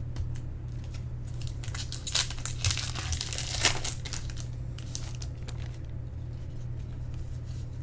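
Trading-card pack wrapper crinkling and tearing as a pack is handled and opened, busiest about two to four seconds in, over a steady low hum.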